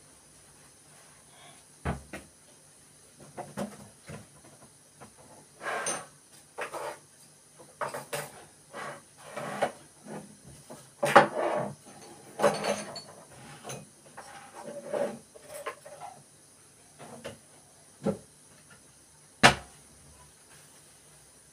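Irregular knocks, clicks and clatter of small hard objects being handled and set down, busiest in the middle, with a sharp single knock about two seconds in and another near the end.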